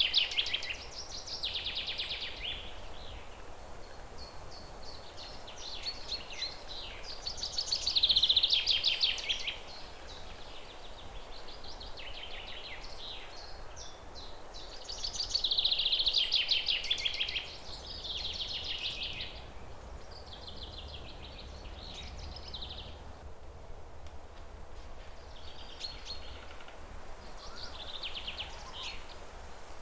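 Songbirds singing high, rapid trilled phrases that come every few seconds, the loudest about eight and sixteen seconds in, over a steady low background noise.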